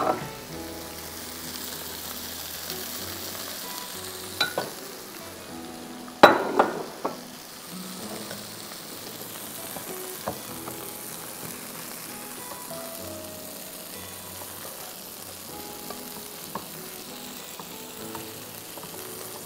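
Food sizzling in pans: sliced vegetables being stirred with a wooden spatula in a saucepan, next to chicken breasts on a grill pan. A few sharp knocks of the spatula against the pan cut through the steady sizzle, the loudest about six seconds in.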